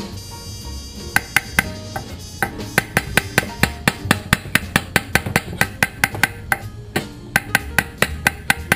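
A chef's knife chopping on a wooden cutting board: quick sharp knocks about four to five a second, starting about a second in and pausing briefly about six seconds in, over background music.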